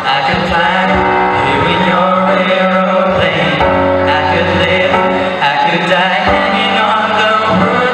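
Male vocal trio singing a pop song into handheld microphones through a PA, with musical accompaniment underneath.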